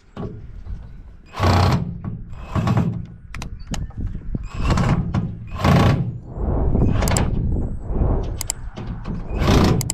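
Bangs and clatter from a microwave oven's sheet-metal casing being worked apart for scrap, with sharp clicks between them.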